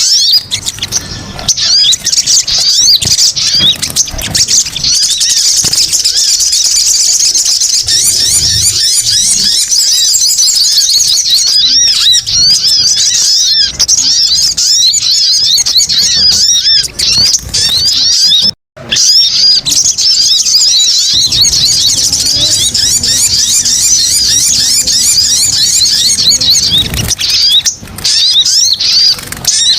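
Lure recording of sogon (little spiderhunter) calls: a loud, dense, rapid chatter of high, sharp chirps that runs on without a break, except for a split-second cut about two-thirds of the way through.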